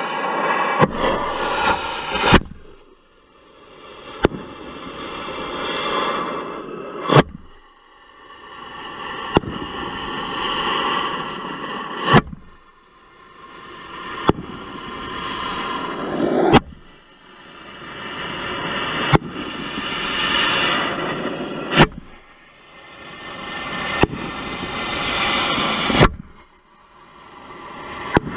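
Memory Fireworks 'Dominator' 500 gram cake firing shot after shot: sharp bangs every two to three seconds, the loudest about five seconds apart. A hissing noise builds up before each loud bang and falls away after it.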